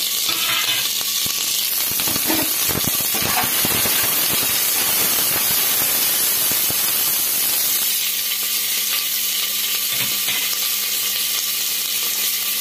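Sliced onions sizzling in hot oil in an aluminium pressure cooker, a steady frying hiss. A metal spatula scrapes and clinks against the pot as they are stirred, busiest in the first half.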